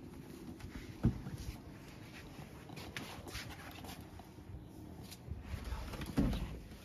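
Handling noise and rustling as a handheld phone is carried across a wooden-floored room. A soft thump comes about a second in, and a heavier thump comes near the end.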